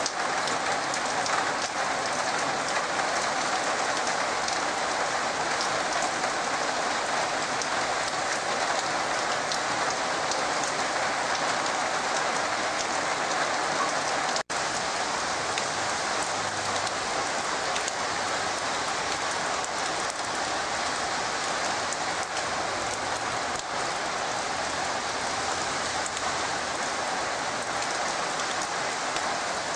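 Heavy rain falling steadily as a dense, even hiss, with a split-second break in the sound about halfway through.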